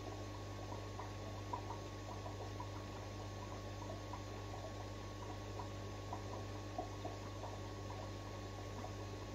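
Aquarium pump humming steadily, with many faint bubbling pops.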